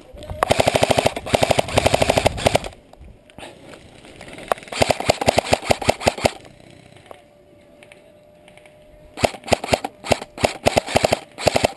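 Airsoft electric rifle firing on full auto in three long strings of rapid shots, the last broken up into several short bursts.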